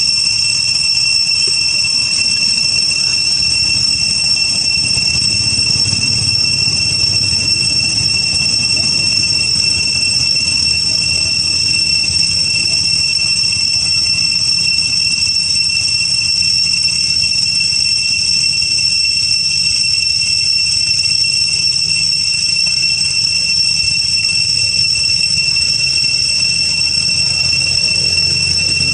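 Cicadas droning in the forest canopy: one loud, steady high-pitched whine that never changes, over a low background rumble.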